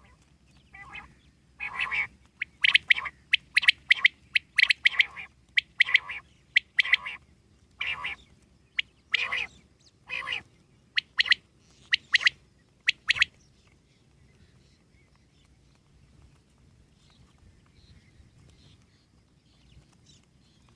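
Common quail calling: a rapid series of short, sharp calls for about twelve seconds, which stops about two-thirds of the way through, leaving only faint background.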